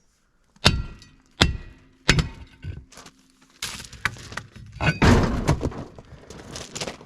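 Three sharp ringing metal clanks about two-thirds of a second apart, then a longer run of rattling and scraping, as of steel tools or parts being handled and set down.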